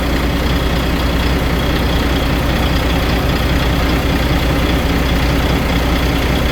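Volvo FH12 truck's 12-litre inline-six diesel engine idling steadily at operating temperature, running evenly with no misfire.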